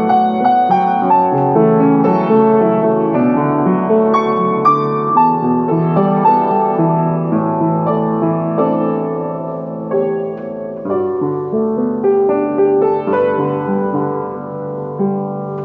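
Solo upright piano playing chords with a melody line above, part of a medley of Filipino classic ballads.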